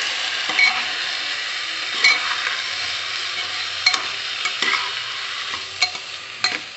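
Raw rice and vegetables sizzling in hot oil and masala in a pressure cooker as a spatula stirs them, the rice being roasted in the spices. The spatula clinks sharply against the metal pot about six times.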